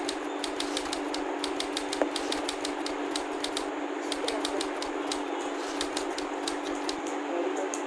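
Plastic Pyraminx puzzle being twisted by hand: quick irregular clicking of its pieces turning, in runs with short pauses, over a steady background hum.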